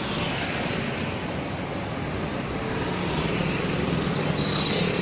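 Steady hum of town road traffic, with a faint thin high tone coming in near the end.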